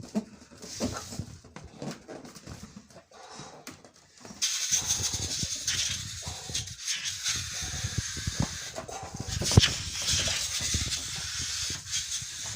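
Air hissing steadily out of a balloon through the hole in a bottle top glued to an old CD, as the balloon-powered CD boat is let go. The hiss starts suddenly about four seconds in, after a quiet stretch.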